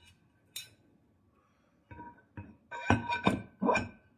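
Turntable platter being set down onto its sub-platter and spindle: a light click, then a quick run of knocks and clinks, each ringing briefly like struck metal, as the platter seats.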